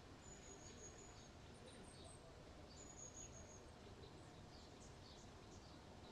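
Near silence: faint steady background hiss with faint high bird chirps, including two longer thin whistles, one near the start and one about halfway through.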